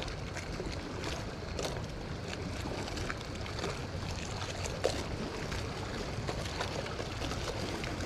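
Steady wind and choppy water lapping, with scattered faint clicks.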